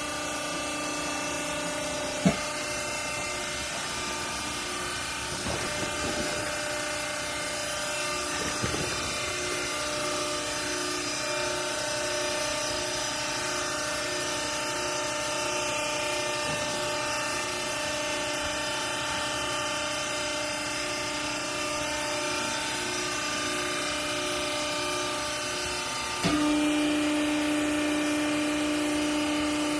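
Hydraulic garment compression baler running: a steady machine hum of its motor and pump, made of several fixed tones. There is a sharp click about two seconds in. Near the end the hum steps up suddenly to a louder, stronger low tone.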